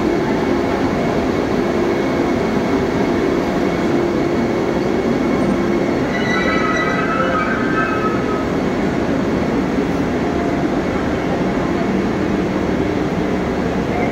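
Vande Bharat Express electric multiple unit rolling slowly along the platform as it pulls in: a steady running rumble with a low hum, and a brief high squeal about six seconds in.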